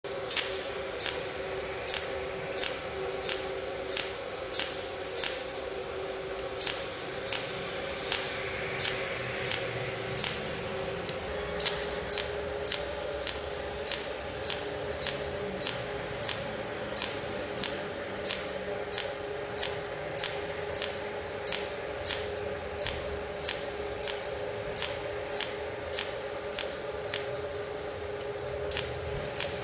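Cold (pulse) welding machine firing regular weld pulses, each a sharp click, about two a second, over a steady hum from the machine.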